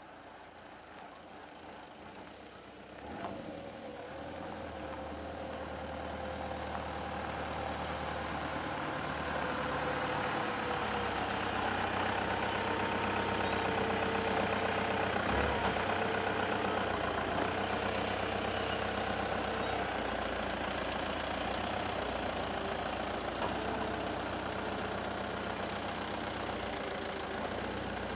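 Heavy dump truck engine drawing closer and growing louder over the first ten seconds, then running steadily at low revs. A sharp knock sounds about three seconds in, and another about halfway through.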